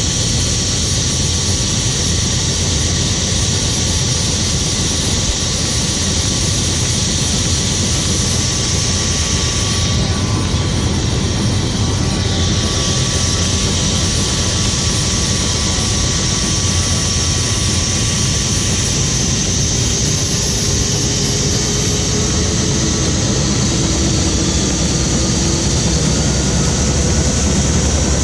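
Helicopter in flight with its doors off: steady engine and rotor noise mixed with wind rushing past the open cabin, the high hiss briefly easing about ten seconds in.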